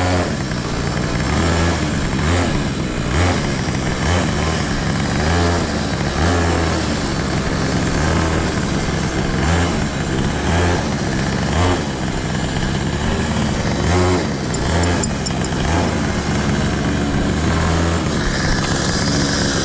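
Small gasoline engine of a kids' ride-on car running steadily while it drives, with irregular low surges and wind rushing over the microphone.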